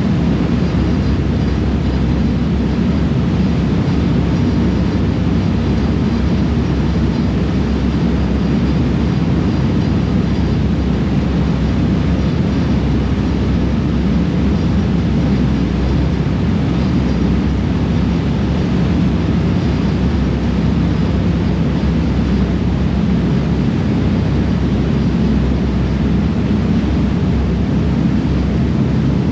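Steady low drone of a ferry's engines under way, mixed with the rush of water churned up in its wake.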